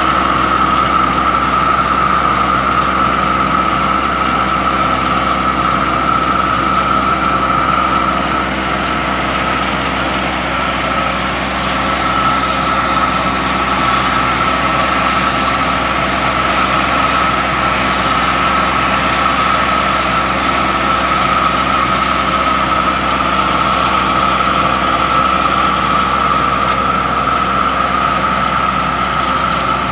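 Trailer-mounted hot mastic melter-applicator machine running steadily, an even engine drone with a steady high whine over it.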